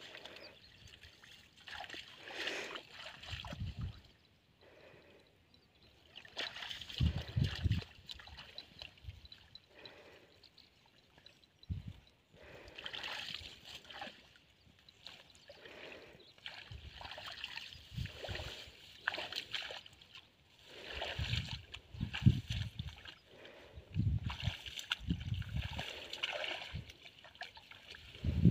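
Hands splashing and sloshing in shallow muddy water in irregular bursts, with low thuds, as a fishing net is worked through the water by hand.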